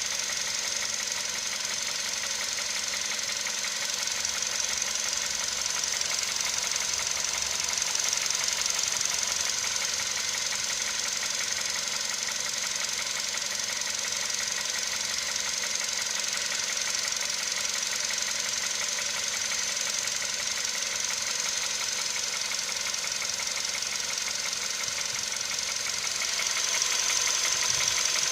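Volkswagen CFNA 1.6-litre four-cylinder petrol engine running with a steady knock, a little louder near the end.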